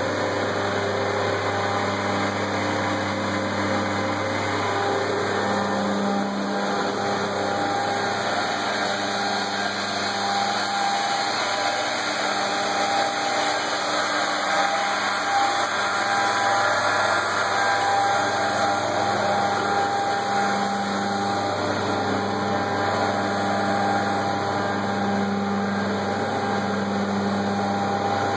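Homag edge banding machine running steadily: an even motor hum with constant mechanical noise and no pauses.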